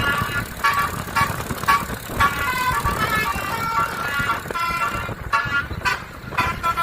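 Indonesian basuri (telolet) bus horn playing a quick melody of short notes that jump in pitch every fraction of a second, with brief breaks between phrases. A low rumble runs underneath.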